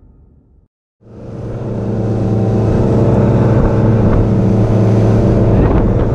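Motorboat under way: a steady engine drone with the rush of wind and water, fading in about a second in.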